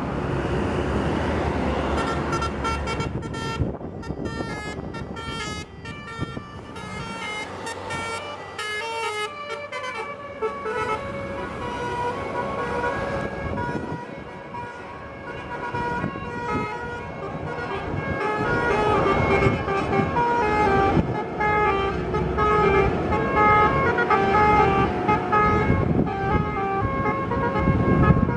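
Basuri telolet multi-tone air horn on a coach playing a tune of short notes that step up and down in pitch, over the bus's running noise.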